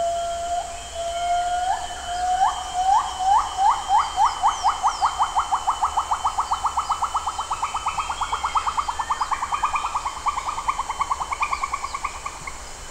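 A long call from a rainforest animal: whistled notes that start slow and speed up to about five a second while slowly climbing in pitch, stopping shortly before the end. A steady high hum runs beneath it.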